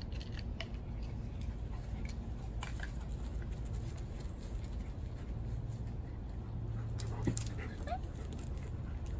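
Dogs moving about, with a few short rising whines near the end, over a steady low background hum.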